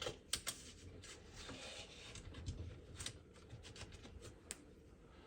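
Small plastic dishwasher parts being handled: a few light clicks and taps, with a short stretch of soft rubbing in between.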